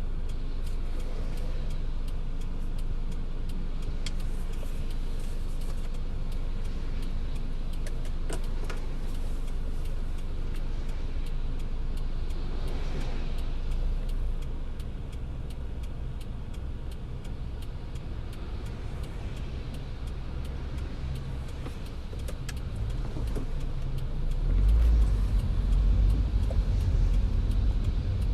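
A car driving in the rain: steady low rumble of road and engine, with scattered raindrop ticks. The rumble gets noticeably louder near the end.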